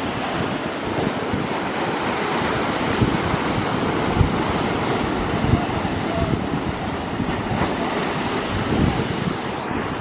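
Sea waves surging and splashing against a rocky cliff base, a steady wash of surf. Wind buffets the microphone with irregular low thumps.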